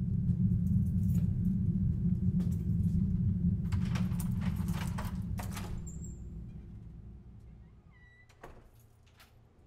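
A deep, low rumble fades steadily away. About four seconds in, keys rattle and a key is worked in a door lock for about two seconds, and a single click comes near the end.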